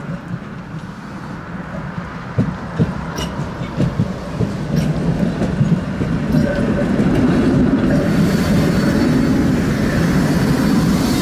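A tram running on its rails, its wheels giving a series of sharp clicks over the track in the first few seconds. The running noise grows louder over the first half and then holds steady.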